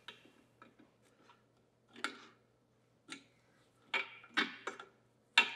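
Hand tap being turned with a tap wrench to thread a hole in a metal capstan base: scattered metallic clicks and ticks as the tap cuts and breaks off chips, sparse at first and coming more often in the second half.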